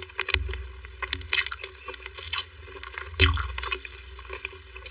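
Close-miked mouth sounds of eating soft mousse cake: wet squishing and lip smacks in an irregular run of short clicks, with a louder squish a little over three seconds in.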